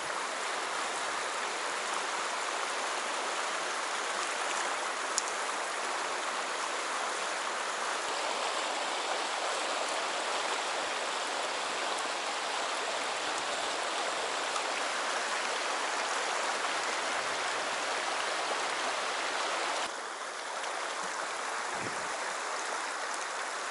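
Shallow, rocky mountain stream rushing over stones in riffles: a steady, even rush of water that shifts a little about twenty seconds in.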